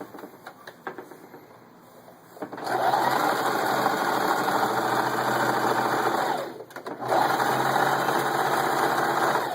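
Singer 4423 Heavy Duty sewing machine running and stitching in two steady runs, with a short stop in between. A few light clicks come before the first run.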